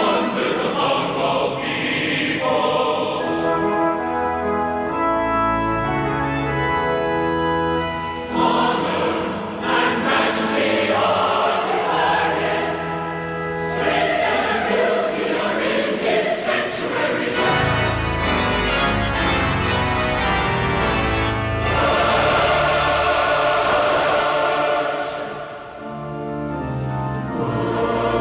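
A choir singing held chords with organ accompaniment.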